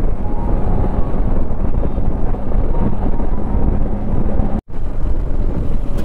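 Motorcycle riding at road speed on a wet highway: a steady engine drone mixed with wind and tyre noise. The sound cuts out for an instant about three-quarters of the way through.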